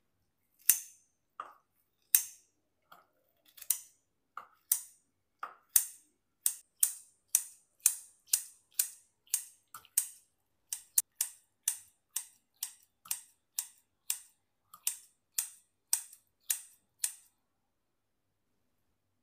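Kitchen knife slicing through food onto a wooden cutting board, one crisp knock per cut. The cuts are uneven at first, then settle into a steady rhythm of about two a second before stopping near the end.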